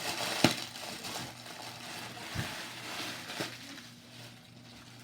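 Slime being handled: soft squishing noise with a few sharp clicks, the loudest about half a second in, growing quieter toward the end.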